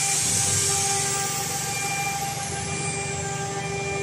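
Steady hum of workshop machinery with a loud hiss of air that fades away over about three seconds, while a faint high whine falls in pitch.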